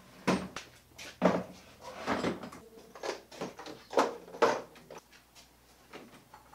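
Tools and plastic organizer cases being set down and pushed onto wooden shelves: a run of separate knocks and clunks, about one a second, fading near the end.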